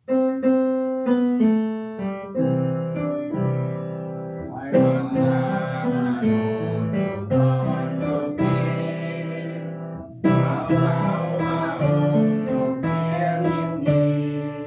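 Piano playing slow chords with the notes left to ring. The playing fills out into fuller chords about five seconds in.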